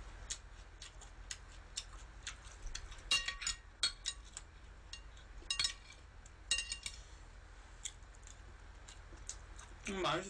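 Metal chopsticks and a spoon tapping and scraping on a ceramic plate: scattered light clicks, with a few louder ringing clinks in the middle.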